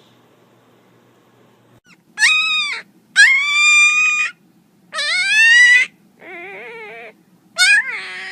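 A dog whining in a series of about five drawn-out, high-pitched cries, several rising in pitch, with one quieter wavering whine near the end.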